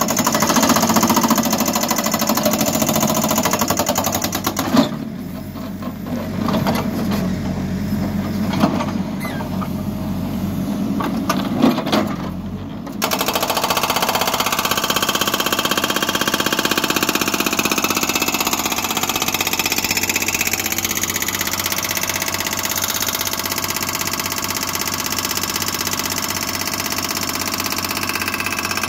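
Hydraulic rock breaker on a HİDROMEK backhoe loader hammering rock in a fast, steady pounding, with the machine's diesel engine running under it. The sound changes abruptly about five seconds in and again about thirteen seconds in, settling into a steadier running sound for the rest.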